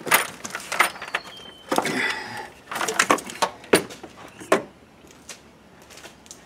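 Plastic intake manifold being lifted off a V8 engine: a string of knocks, clicks and scrapes as it is worked free and handled, dying down after about four and a half seconds to a few faint ticks.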